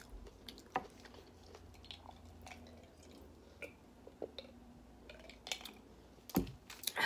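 Soft eating and drinking sounds: small wet mouth clicks and chewing, with sips and swallows of iced water from a glass mason jar. A louder knock about six seconds in as the jar is set back down.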